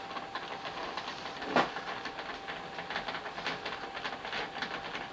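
Screwdriver driving the screw that fastens a graphics card's bracket to a PC case: a quick run of small clicking ticks, with one louder knock about a second and a half in. A faint steady whine sits underneath.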